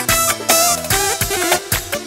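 Electronic keyboard music played through loudspeakers: an ornamented lead melody that bends between notes, over bass notes and a steady drum-machine beat of about two hits a second.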